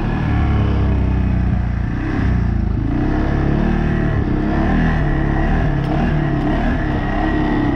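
CFMoto CForce 600 ATV's single-cylinder engine running under way, its pitch rising and falling repeatedly as the throttle changes.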